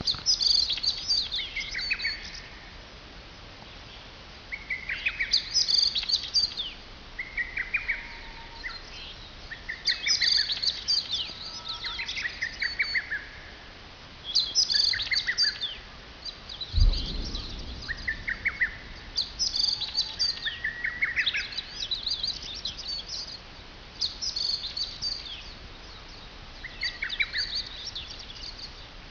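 Songbirds singing, short song phrases repeating every few seconds, with one dull thump about 17 seconds in.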